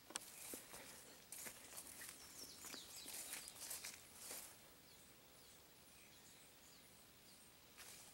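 Faint crackling and rustling of footsteps through dry leaves and undergrowth: a flurry of them in the first half and more near the end, with a quiet outdoor background in between.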